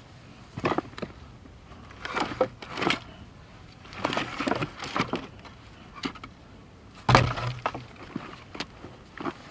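Dry dead branches cracking and snapping, with wood knocking against wood, as firewood is pulled from a pile of fallen branches. It comes in several separate bursts, the loudest a sharp snap with a heavy thud about seven seconds in.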